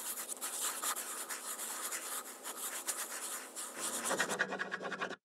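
A quill pen nib scratching across paper in a quick run of short strokes. A low sustained tone joins near the end.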